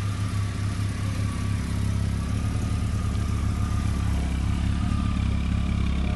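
BMW E36 325i's stock 2.5-litre M50B25 inline-six, non-VANOS, idling steadily through the standard exhaust. The engine is cold, on its first start after sitting over winter.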